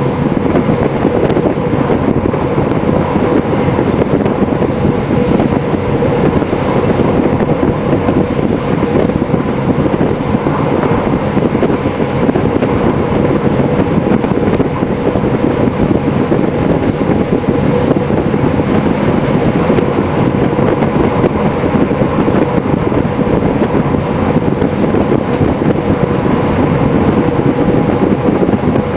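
DB class 628 diesel railcar running at speed, heard from the driver's cab: a steady drone of engine and wheels on rail, with a few held humming tones.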